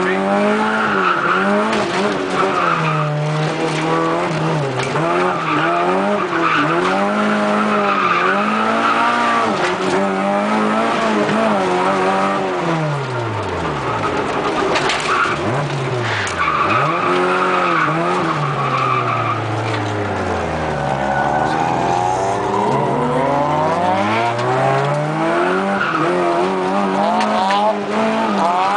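Toyota Corolla AE86 drifting, heard from inside the cabin: the four-cylinder engine's revs rise and fall over and over as the throttle is worked through the slides, with the tyres squealing in bursts.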